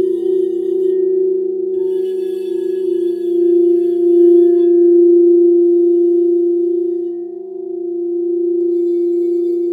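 Frosted quartz crystal singing bowls rimmed with a wand, several steady tones ringing together and swelling louder around the middle. Near the end one of the upper tones begins to pulse in a wavering beat.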